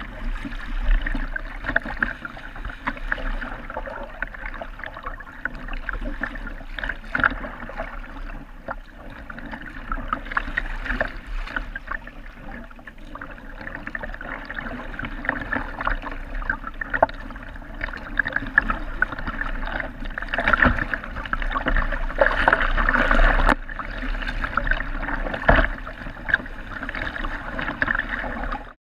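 Choppy sea water splashing and sloshing against the hull of a sea kayak under way, in uneven surges. The sound cuts off suddenly at the very end.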